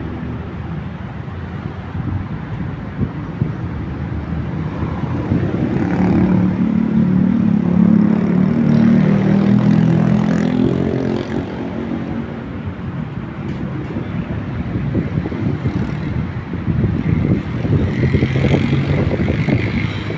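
A motor vehicle's engine passing through city traffic noise, building to its loudest about eight to ten seconds in and then fading away.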